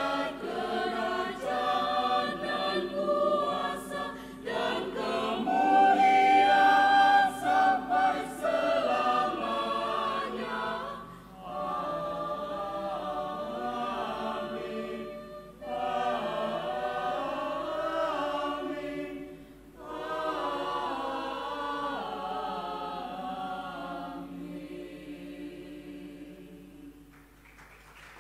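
Mixed choir of young men and women singing together in sustained phrases with brief breaths between them. The last phrase dies away near the end.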